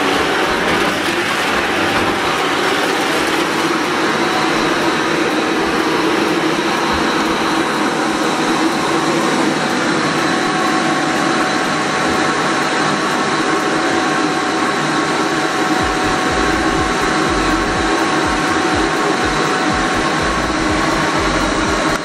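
Shark upright vacuum cleaner running, a steady, even motor noise with a faint high whine.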